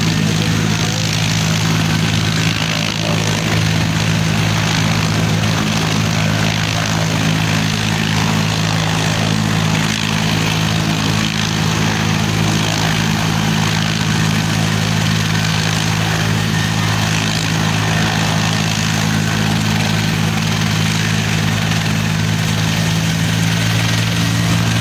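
Helicopter running on the ground with its main rotor turning: a loud, steady engine and rotor drone that holds even throughout.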